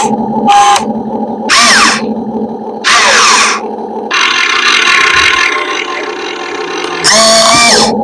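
Radio-controlled model excavator and bulldozer working: a steady motor hum with about five short bursts of higher whirring, some falling in pitch as the motors wind down.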